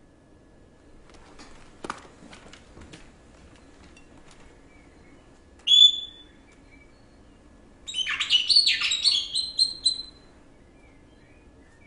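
A bird chirps once, then about two seconds later gives a quick twittering run of high chirps lasting about two seconds. A few faint clicks come before them.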